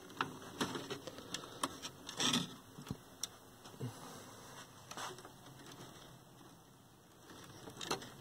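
Scattered small plastic clicks and rattles as wiring harness clips inside a TV chassis are unfastened and the wires handled, most of them in the first three seconds, with a few single clicks later.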